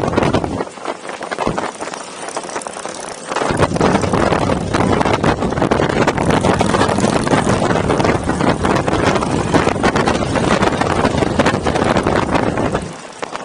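Wind rushing and buffeting over the microphone of a moving motorcycle, with road and engine noise beneath. The low rumble drops away for a couple of seconds about a second in, and again just before the end.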